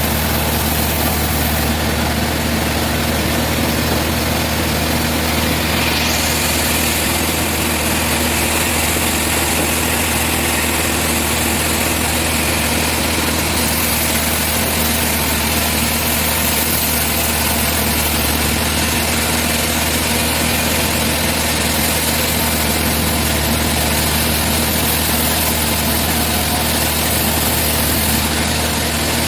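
Sawmill machinery running steadily, a constant low hum with a high hiss over it that changes about six seconds in.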